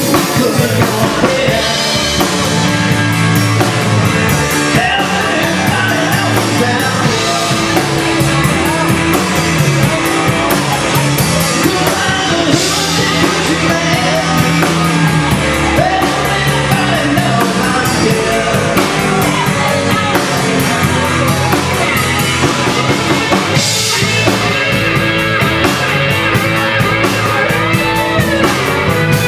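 Live rock band playing: electric guitars, bass and drum kit, with a singer.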